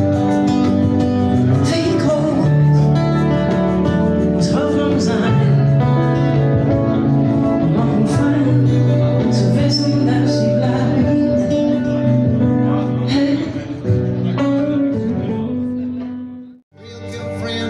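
Live duo playing through a stage PA: electric and acoustic guitar with singing. The music cuts out abruptly near the end and different music starts.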